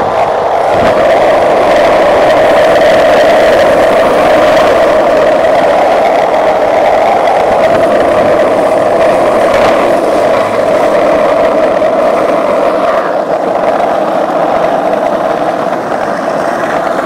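Skateboard wheels rolling over street asphalt, a loud steady rolling rumble with no breaks.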